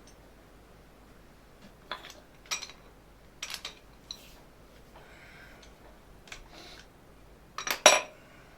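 Small metal parts and hand tools clinking and being set down, a handful of separate sharp taps with the loudest, a quick double clink, near the end.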